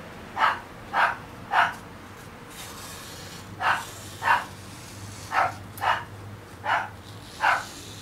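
A dog barking: about nine short barks in loose groups of two or three, each a little over half a second apart.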